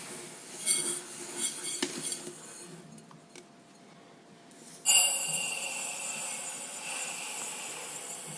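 A few light ringing clinks of a container in the first two seconds, then granulated sugar poured into it from about five seconds in: a steady hiss of grains that starts suddenly and slowly fades.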